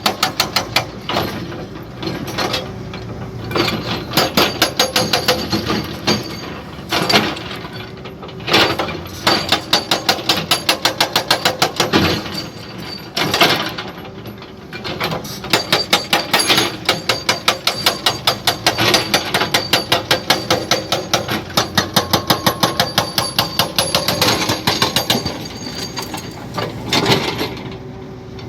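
A jackhammer pounding in runs of rapid, evenly spaced blows, each run lasting a few seconds with short pauses between.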